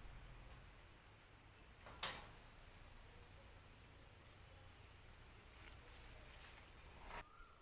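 A faint, steady, high-pitched insect trill, finely pulsing throughout. A single sharp click about two seconds in, and a brief rustling knock near the end.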